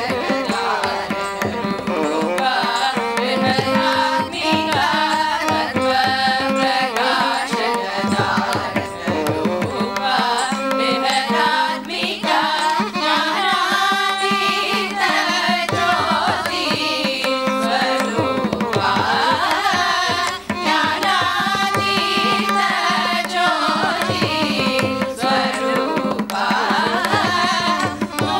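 A group of women singing a Carnatic song together, accompanied by mridangam drum strokes over a steady drone.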